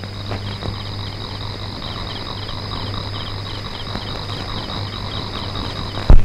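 Crickets chirping steadily in a night ambience track, high-pitched and rapidly repeating, over a low steady hum. One sudden loud thump comes just before the end.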